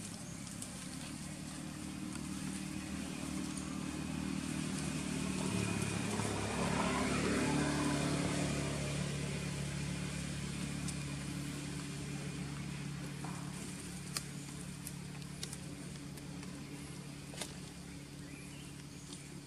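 A motor vehicle's engine running, growing louder to a peak about seven seconds in and then slowly fading, as a vehicle passing by would. Its pitch shifts a little near the peak. Two sharp clicks come later.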